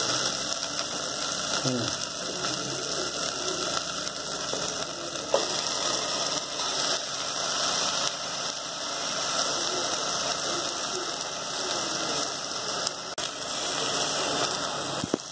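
Masala frying in an aluminium cooking pot: a steady, dense sizzle and crackle.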